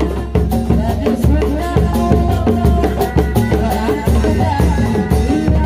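Sundanese reak ensemble playing: a large drum beaten with a stick in a steady beat of about two strokes a second, with a wavering melody line over the drumming.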